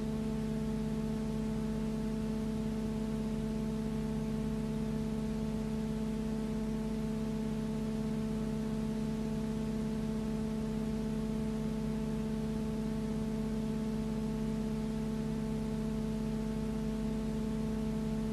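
Steady hum with several even overtones over a light hiss, unchanging in pitch and level throughout.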